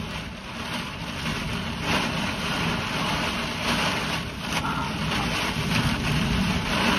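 Storm wind gusting and rain beating on a motorhome, heard from inside; the noise swells louder about two seconds in and keeps surging.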